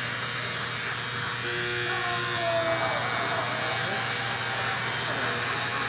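Electric hair clippers running steadily with a low buzz during a haircut.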